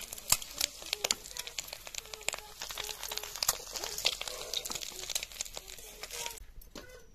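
Hot oil crackling and spattering in a wok as shallow-fried boiled eggs are turned and lifted out with a metal spatula. The crackle is dense and full of sharp pops, and it cuts off suddenly near the end.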